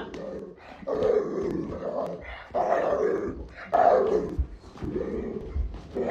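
A dog vocalizing in four or five drawn-out calls, each about half a second to a second long and mostly falling in pitch, with short pauses between them.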